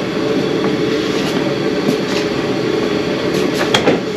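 1991 Jeep Comanche engine being cranked over by its starter motor in a steady, rhythmic churn that never catches and fires. This is a crank-no-start, which was traced to a distributor rotor that had broken apart, leaving no spark.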